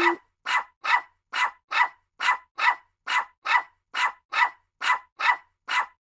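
A dog barking in a steady series of about a dozen short, sharp barks, roughly two a second, which stop abruptly near the end.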